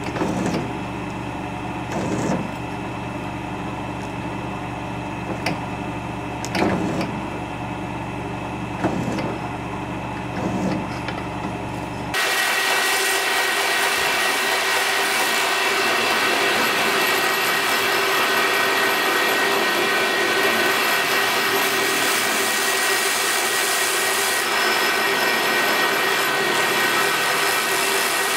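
A drill press running with a steady hum, its cutter scraping irregularly into the sword blank's hilt. About twelve seconds in this gives way to a belt grinder running steadily and louder as the sword's blade is ground against the belt.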